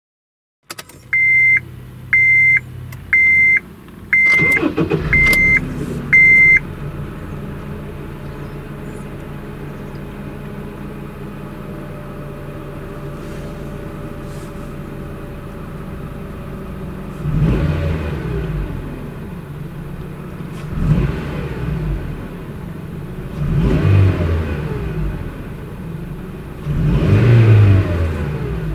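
A car's warning chime beeps six times, about once a second, while the Honda Edix's K20A 2.0-litre i-VTEC DOHC four-cylinder is cranked and starts about four seconds in. The engine then idles steadily and is free-revved four times in the second half, each rev falling back to idle.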